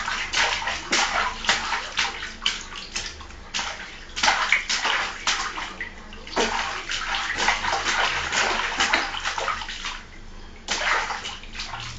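A baby slapping the water in a small plastic baby tub with her hands: rapid, irregular splashes and sloshing, with a few short pauses, the longest near the end.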